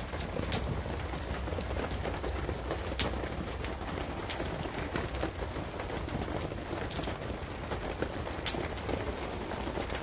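Steady rain falling on a canvas teepee, with a few sharp ticks scattered through it.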